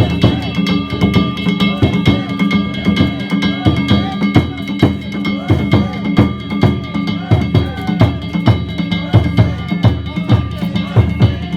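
Japanese festival drumming: taiko drums beaten in a fast, steady rhythm, with metal gongs ringing throughout.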